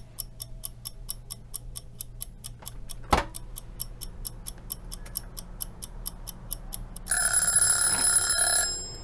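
A clock ticking steadily, about four ticks a second, with a single sharp clack a little after three seconds in as the front door is opened. Near the end the ticking gives way to a loud alarm-like tone of several steady high pitches lasting about a second and a half.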